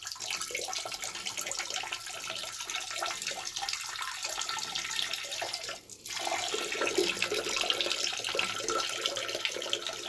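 Water running steadily, with a short break about six seconds in.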